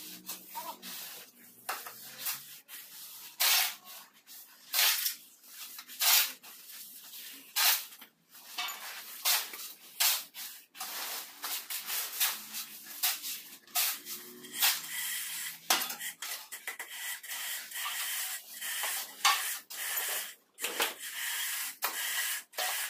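Repeated gritty scraping of tools and hands working damp sand-cement mortar on a floor, in short, irregular strokes.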